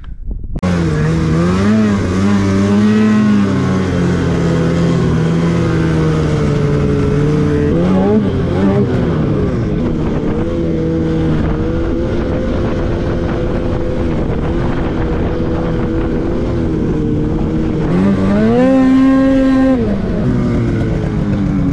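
Two-stroke mountain snowmobile engine running under throttle while riding, its pitch wavering with the throttle. Near the end it rises briefly, then drops back.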